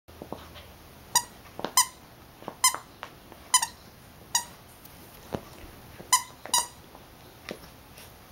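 Squeaker inside a plush dog toy squeaking in short squeaks, about seven times at uneven intervals, as a Siberian husky puppy bites and chews it. Faint chewing knocks come between the squeaks.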